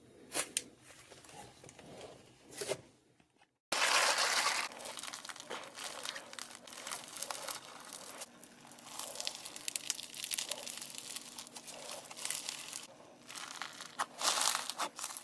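Hands stretching and pressing foam-bead slime (floam): dense crackling and crunching of the beads, loudest just after it starts and again near the end. Before that, for about three seconds, glossy slime is squeezed by hand with a few soft pops, then the sound drops out briefly.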